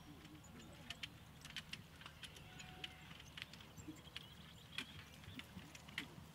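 A single horse trotting in harness and pulling a four-wheeled carriage: irregular light clicks and knocks from hooves, harness and carriage, a few each second, over a steady low rumble.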